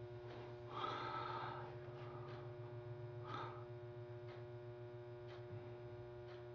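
Faint steady low electrical hum, with two soft breathy sounds, one about a second in and a shorter one past three seconds.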